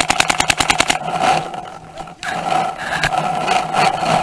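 Paintball marker firing a rapid string of shots, about ten a second, that stops about a second in. It is followed by steady scraping and rustling noise as the player moves with the gun.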